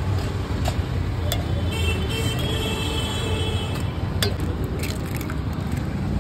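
Background music over a steady low street rumble, with several sharp clicks of eggshells being cracked against the rim of a steel mug.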